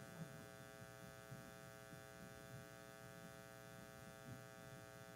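Near silence: room tone with a steady electrical hum.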